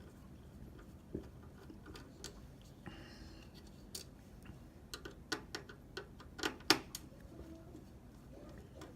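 Light clicks and ticks of a small Torx screwdriver working the tiny screws that hold a console's network card, scattered at first and then a quick run of sharper clicks about five to seven seconds in, the loudest near the seven-second mark.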